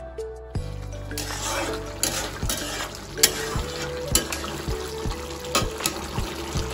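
A metal ladle stirring a thick eel curry in a metal kadai, knocking and scraping against the pan about twice a second over a steady sizzle.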